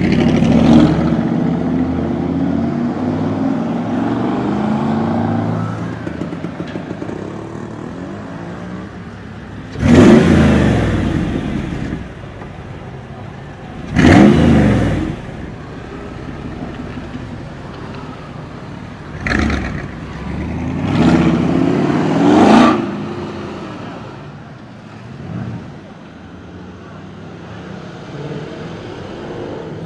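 Mercedes-AMG G-Class (G-Wagon) engines revving on the street. The loudest rev blasts come about ten and fourteen seconds in, with another rising rev a little past twenty seconds and steadier engine running in between.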